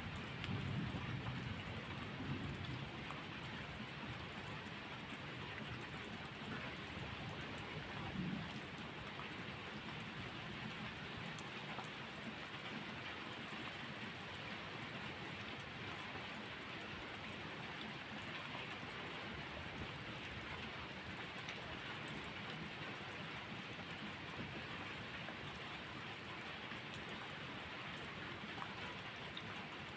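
Steady rain falling on a surface, an even hiss, with a low rumble of distant thunder fading out over the first few seconds.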